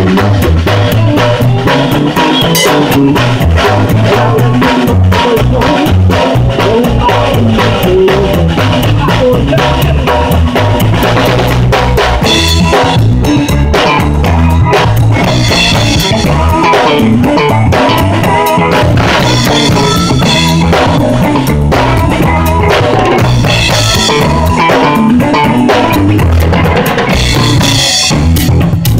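Live band playing an instrumental number, heard from right behind the drum kit: drums and cymbals are the loudest part, with saxophone and electric guitar over them.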